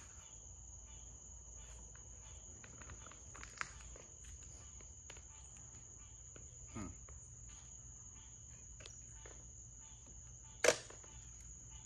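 Insects trilling steadily on one high note, with a few faint clicks and a single sharp knock near the end.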